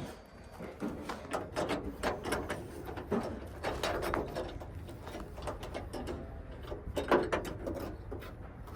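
Irregular metal clicks, rattles and scrapes as a van's side door handle and lock assembly is worked loose and pulled out of the door, with a louder burst of clatter about seven seconds in.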